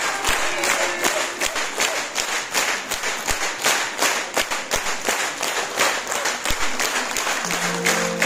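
Concert audience applauding, many hands clapping. Near the end, music starts under the applause.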